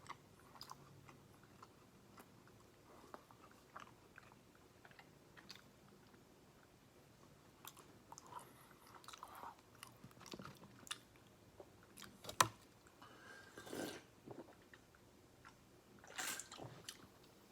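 A person chewing and biting food close to the microphone, with soft crunches and wet mouth clicks. There is a sharp click about twelve seconds in.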